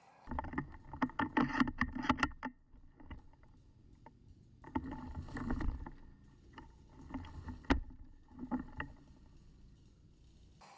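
Three bursts of rustling and crackling with low knocks and scuffs, the sound of a person in a ghillie suit moving through brush with gear rubbing close to the microphone. There is one sharp click a little past the middle.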